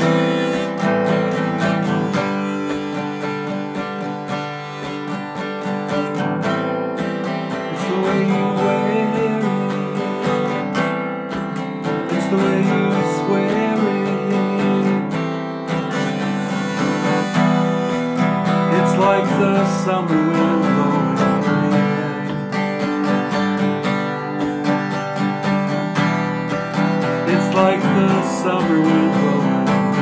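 Strummed acoustic guitar with a harmonica playing a wavering, bending melody over it, one player on both instruments with the harmonica in a neck rack.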